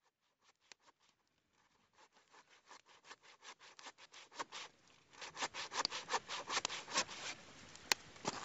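Hand saw cutting through a log in quick, even rasping strokes that fade in from faint and grow loud by the middle. There is a single sharp click near the end.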